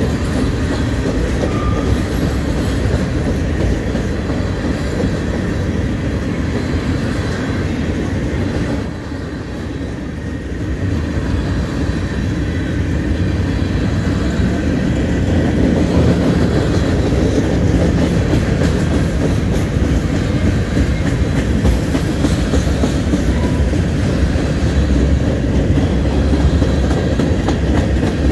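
Freight train's tank cars and covered hopper cars rolling past close by: a steady, loud rumble of steel wheels on the rails with clickety-clack, dipping briefly about nine seconds in.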